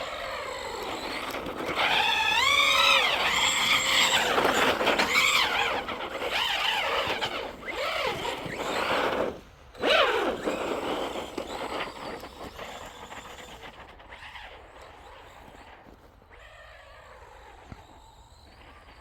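Electric RC truck's motor whining as it is throttled hard, the pitch rising and falling with each burst of speed. The whine drops out about nine and a half seconds in, comes back briefly, then fades to a faint hum for the rest.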